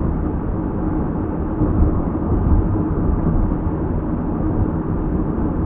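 Steady road and engine rumble of a car driving at freeway speed, heard from inside the cabin.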